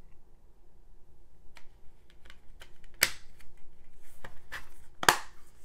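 Clear plastic Blu-ray case clicking and snapping as it is handled and closed, with the disc pressed onto its hub: a handful of sharp plastic clicks, the loudest about three and five seconds in.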